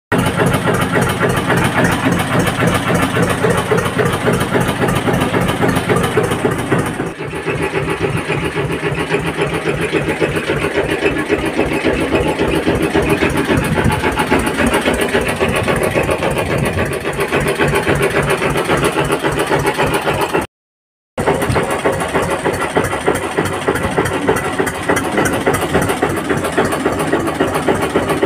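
Eicher tractor's diesel engine running with a steady, rapid pulsing beat. The tone of the engine shifts slightly about a quarter of the way through, and the sound cuts out for about half a second roughly two-thirds of the way through.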